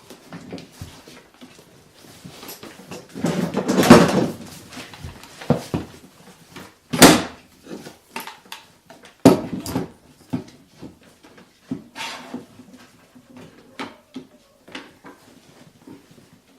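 Scattered knocks and clatter of wooden rack pieces and tools being handled while fitting a support rail, with a longer scraping rustle about three to four seconds in.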